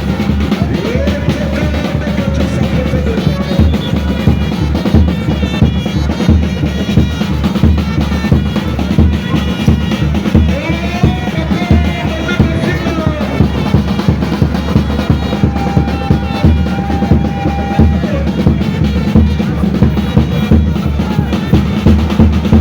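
Drum-driven music: drums beating a fast, steady, dense rhythm, with a held high note about three quarters of the way through.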